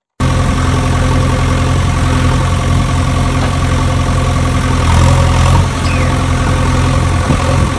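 Engine sound effect: a heavy engine idling with a steady low drone, swelling slightly about five seconds in.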